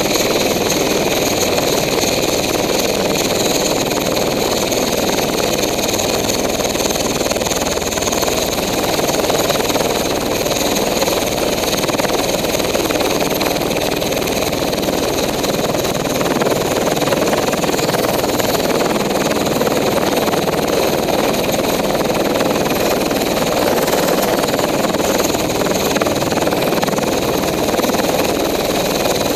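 Bell UH-1Y Venom helicopter running on the ground with its rotors turning: a loud, steady rush of rotor and engine noise with a constant high whine from its twin turboshaft engines.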